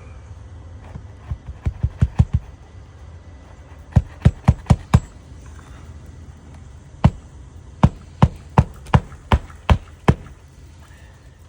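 Hammer nailing down a roof shingle: three runs of sharp hammer blows, five to eight strikes each, the last run slower and more evenly spaced.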